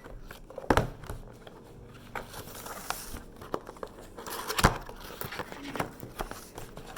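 Packaging crinkling and rustling as an activity set is opened by hand, with scattered sharp clicks and knocks, the loudest about a second in and again past halfway.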